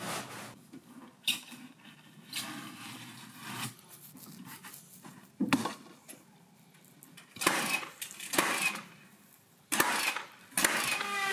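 Carpentry work on a timber wall: a sharp knock about a second in, a thump in the middle, then several short bursts of a power tool in the last few seconds.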